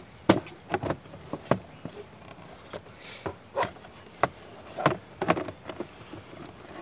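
A hard plastic glove box knocking and rubbing against the dashboard as it is worked back into place. There are irregular sharp clicks and taps as its side flaps are lined up to clip in.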